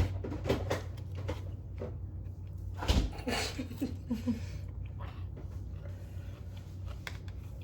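Small clicks and knocks of eating and handling food containers, with one louder thump about three seconds in, over a steady low hum.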